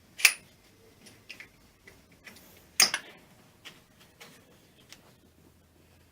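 Irregular clicks and taps of parts or tools being handled, with two louder knocks, one just after the start and one near the middle.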